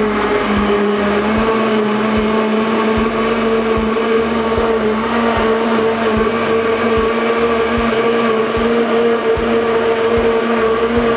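Countertop electric blender running at a steady speed, blending a liquid batter of eggs, milk, sugar and yeast, with an even motor hum.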